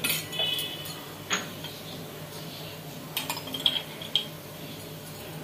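Metal spoon clinking lightly against steel utensils a handful of times while ghee is scooped out and added to the pot. The first clink rings briefly.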